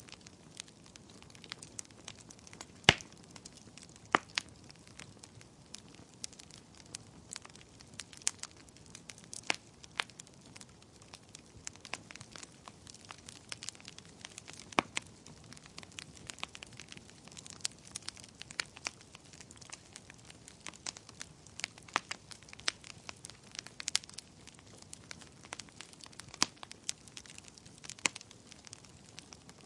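Wood bonfire crackling: irregular sharp pops and snaps over a soft steady hiss, the loudest pop about three seconds in.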